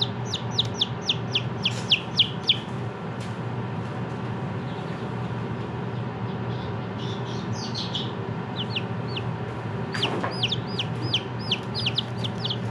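Baby chicks peeping: runs of quick, high, falling peeps, several a second, in bursts at the start and again from about ten seconds in, over the steady hum of a small space heater's fan. A single sharp click sounds at about ten seconds.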